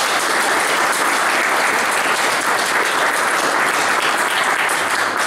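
Audience applauding, a dense and steady clapping of many hands at the end of a speech.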